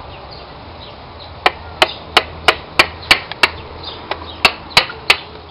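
About a dozen sharp taps, roughly three a second, starting about a second and a half in: a piston with new rings being tapped down through a ring compressor into a cylinder bore of a VW Pointer 1.8 engine block.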